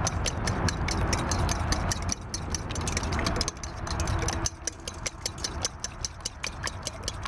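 Fork beating an egg-and-milk mixture in a stainless steel mixing bowl: quick, regular clinks of the tines against the metal, several a second, over a low rumble.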